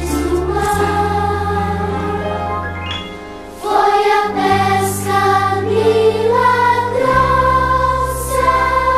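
Group of voices singing a religious song over instrumental backing with a steady bass line that changes note every few seconds. The music drops briefly about three seconds in, then comes back in full.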